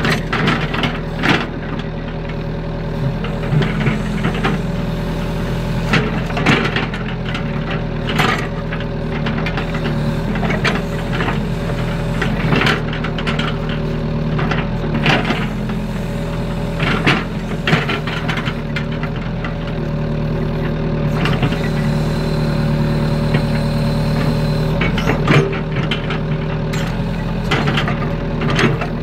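Excavator's diesel engine running steadily while working, with irregular knocks and rattles from the bucket and boom as it scrapes and pats down mud.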